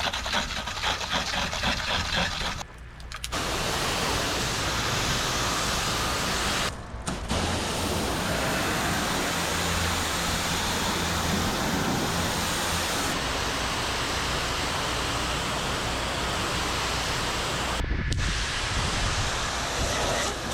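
Pressure washer rinsing house siding: a steady hiss of high-pressure water spray over the low hum of the machine, cutting out briefly about three and seven seconds in and again near the end.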